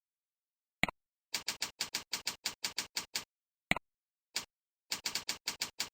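Computer keyboard typing: a single click, then a run of quick, even keystrokes at about nine a second, a pause broken by two single clicks, then a second run of keystrokes.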